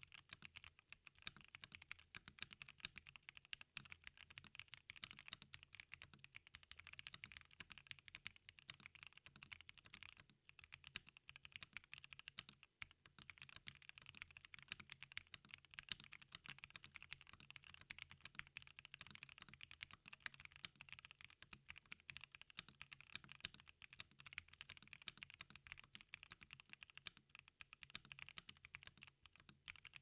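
Continuous fast typing on a KBDFans Tiger80 Lite mechanical keyboard with stock Gateron Irene switches, a polycarbonate plate, no foam and Domikey ABS keycaps: a steady stream of keystroke clicks with no pauses.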